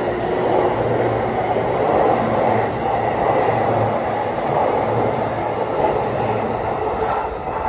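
JR East E233 series electric commuter train running past close by: a steady rumble of wheels and running gear, easing slightly near the end.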